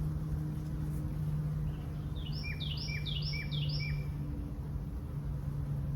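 A songbird sings one short phrase repeated four times, about two seconds in, over a steady low hum.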